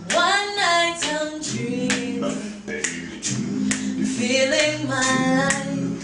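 A cappella voices singing in harmony, a higher lead line over low backing voices, entering together right at the start. Finger snaps keep time about once a second underneath.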